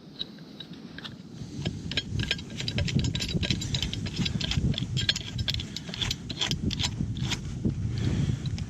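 Steel pipe wrenches clinking and rattling against metal as they are handled and set on a rusted gas pipe fitting, many short knocks over a steady low rumble.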